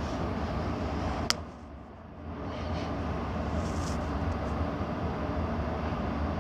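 Steady low rumble of wind and shipboard background noise. One sharp click comes a little over a second in, and the rumble then dips for about a second before returning.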